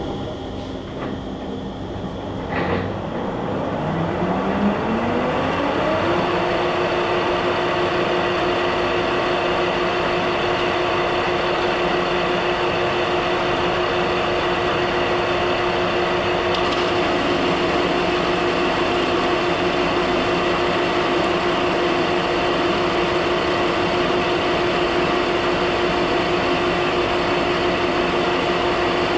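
Metal lathe starting up: a clunk, then its motor and spindle whine rises in pitch for about two seconds and settles into a steady hum at running speed.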